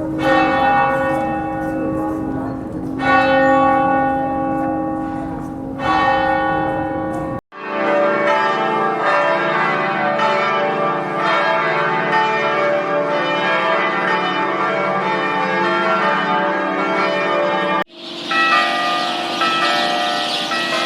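Church bells ringing in separate recordings that cut abruptly from one to the next. First a large bell tolls slowly, about one stroke every three seconds. Then several bells peal together in rapid overlapping strokes, and near the end another bell recording begins.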